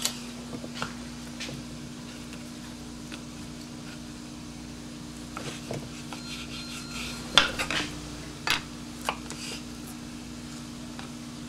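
Kitchen knife slicing a ripe banana on a wooden cutting board: scattered sharp taps of the blade against the board, the loudest a quick cluster about seven and a half seconds in. A steady low hum runs underneath.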